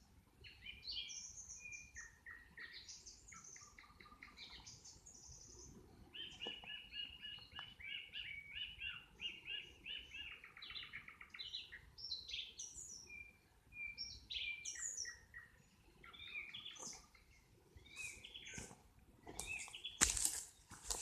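Nightingale singing: varied phrases of rapid trills and whistled notes, with a long run of fast repeated notes midway. A couple of sharp clicks near the end are the loudest sounds.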